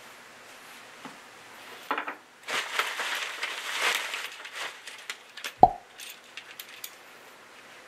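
Plastic mailer bag crinkling and rustling as a hand rummages inside it, then a few light clicks and one sharp click about five and a half seconds in as a carabiner in its card packaging is pulled out and handled.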